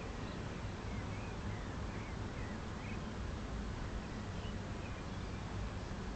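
Birds chirping faintly, a run of short high chirps in the first few seconds and a few more later, over a steady low rumble.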